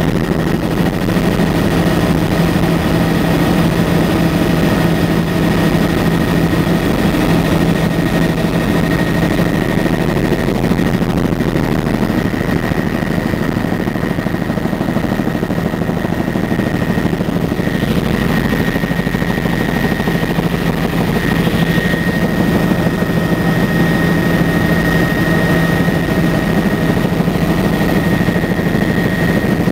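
Helicopter in flight: loud, steady engine and rotor drone with a thin high whine held over it.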